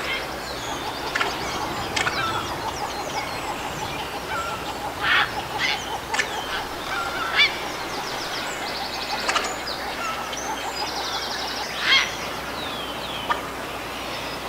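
A heron giving short, harsh calls at irregular intervals, several of them loud, with other birds singing high trills in the background.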